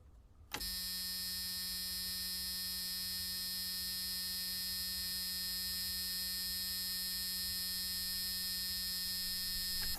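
A long electric buzz, one steady low-pitched tone that comes on abruptly about half a second in, holds unchanged for about nine seconds, then cuts off suddenly.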